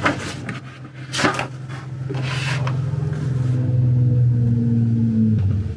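Stiff paper pages of a spiral-bound album and a large poster being handled and flipped, in a few short rustles. A steady low hum swells up through the middle, is the loudest sound, and cuts off suddenly near the end.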